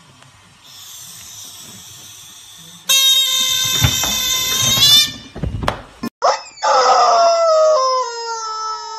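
A yellow rubber chicken toy squawks in a long, loud honk, pressed against a cat's face. The squawk starts about six seconds in, dips, then holds steady. Before it, a loud, shrill, held cry lasts about two seconds, followed by a few dull thumps.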